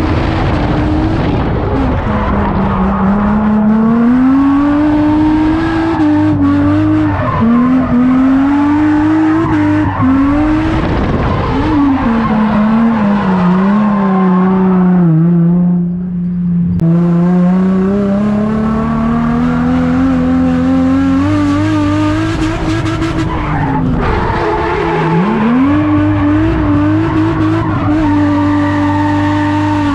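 Car engine revving hard through a drift run, its pitch climbing and falling again and again as the throttle is worked, with tyres squealing and skidding. About halfway the engine eases off briefly, then climbs again.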